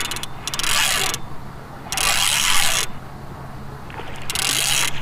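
Fishing reel cranked in three short spells, reeling line in on a hooked catfish, over a steady low hum.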